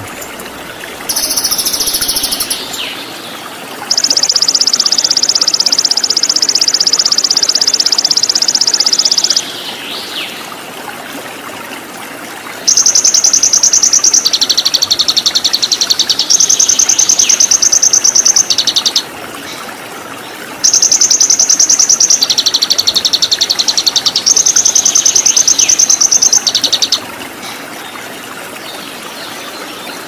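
A small songbird's rapid, high-pitched trills in three long bursts of about six seconds each, the later two switching back and forth between a higher and a lower pitch, over the steady rush of running stream water.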